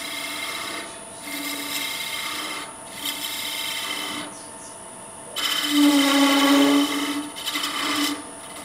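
Turning tool cutting a small wooden spindle on a running wood lathe: a rasping cut in three short strokes, a pause of about a second a little past the middle, then a longer, louder cut with a low steady tone in it. The faint steady whine of the lathe runs underneath.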